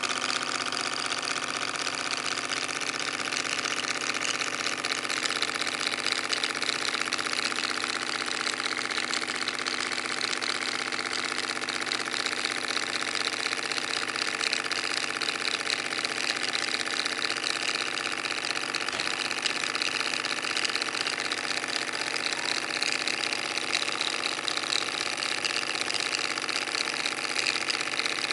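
Model Stirling-cycle hot-air engine running steadily, its crank, connecting rod and flywheel making a fast, even mechanical clatter.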